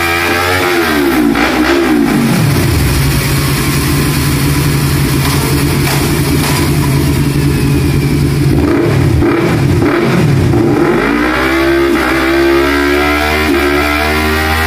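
Motorcycle engine running and revving. Its pitch rises and falls, holds steady for several seconds in the middle, then dips and climbs again a few times about two-thirds of the way through.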